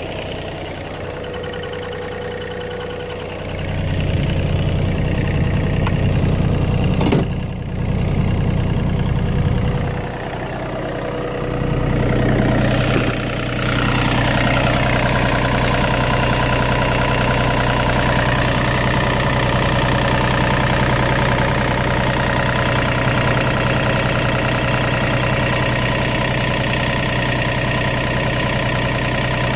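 John Deere 35D mini excavator's Yanmar diesel engine idling steadily, with one sharp click about a quarter of the way in. The engine sounds louder and fuller from about halfway through, heard up close at the open engine compartment.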